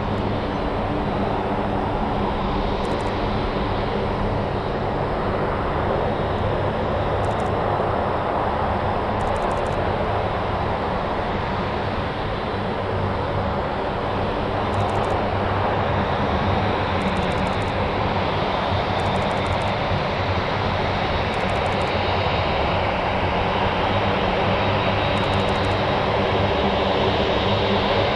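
Boeing 747-8F freighter's jet engines (GE GEnx-2B turbofans) running steadily: a broad jet noise with a thin, steady high whine, growing slightly louder over the second half.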